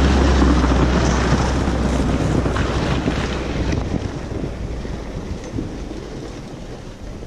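Snowmobile engine running and fading as the machine moves away, with wind buffeting the microphone.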